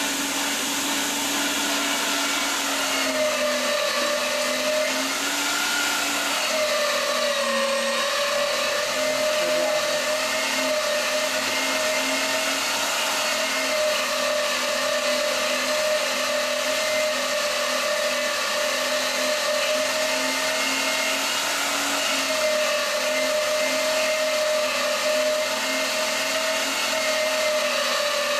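Sunmile SMG33 electric meat grinder running steadily with a motor whine while grinding chunks of red meat pushed down its feed tube. The pitch dips slightly a few times.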